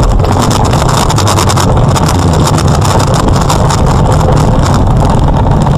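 Loud, steady vehicle rumble heard through a dashcam's microphone, with a continuous crackle over it.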